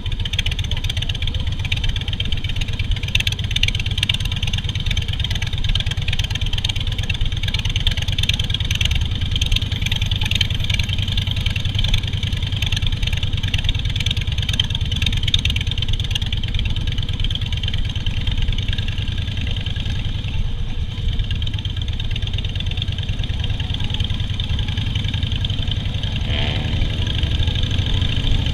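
Harley-Davidson Softail Standard's air-cooled V-twin engine running steadily, its exhaust beating in a low, rapid pulse.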